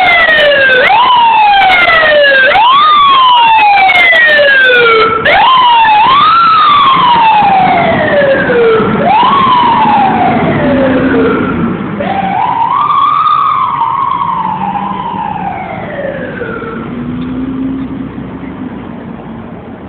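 Fire engine siren wailing, each wail rising quickly and then sliding slowly down in pitch, over and over. It grows fainter over the last several seconds as the truck drives away.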